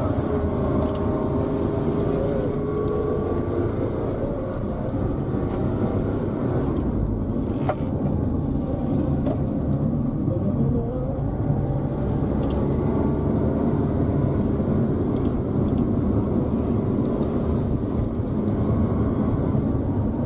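Car engine and road noise heard inside the cabin while driving, a steady low running sound whose pitch rises and falls a few times. A single click is heard about eight seconds in.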